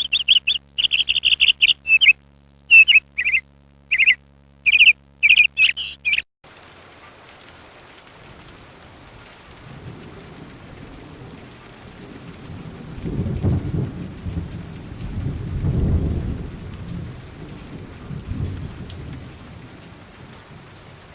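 A bird chirping in quick, repeated short notes, then an abrupt change about six seconds in to steady rain with rolling thunder that swells and fades toward the middle.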